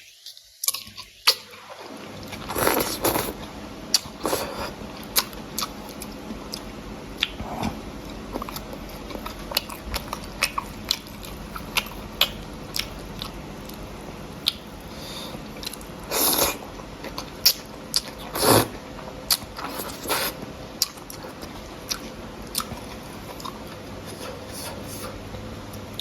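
Close-up eating sounds from a bowl of noodle soup: chewing and biting, with many short clicks and a few longer bursts scattered throughout.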